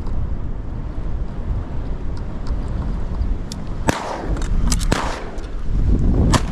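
Several shotgun shots in quick succession, starting about four seconds in, over heavy wind rumbling on the microphone.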